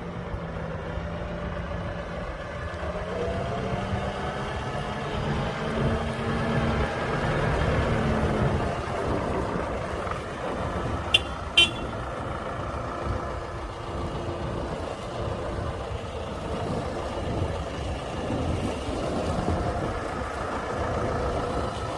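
Farm tractor engine running while its front loader scoops palm kernel feed, the engine pitch rising over the first several seconds and dropping back about eight seconds in. Two sharp clicks come a little past halfway.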